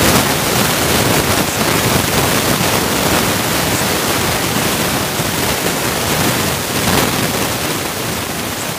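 Loud, steady rushing noise that covers all pitches evenly, with no clear tone or rhythm.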